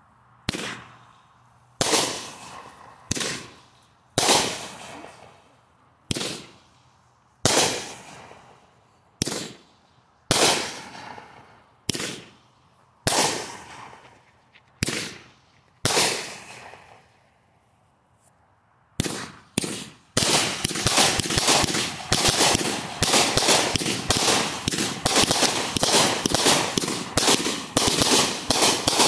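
Medalist consumer firework cake firing: loud single shots about a second apart, each trailing off, then a short lull, and from about twenty seconds in a rapid barrage of many shots a second as its finale.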